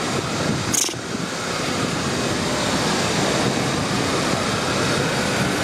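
Street traffic noise: a steady, loud rush of passing vehicles that builds about a second in and then holds, with one short sharp sound just before it swells.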